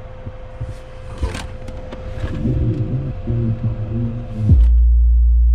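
Music bass played through car subwoofers driven by an Orion HCCA amplifier, building up until a loud, sustained deep bass note comes in about four and a half seconds in. A steady hum runs underneath.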